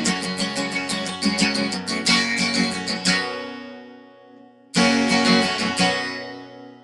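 Acoustic guitar strummed in a steady rhythm that stops about three seconds in and rings out. It is followed by a final strummed chord about a second and a half later, left to ring and fade, closing the song.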